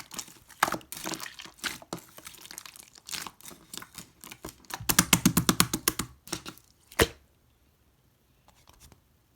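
Blue-and-clear mixed slime being squeezed and worked by hand, with many small clicks and pops of trapped air. There is a fast run of pops about five seconds in and one sharp click near seven seconds, after which it goes almost quiet apart from a few faint clicks.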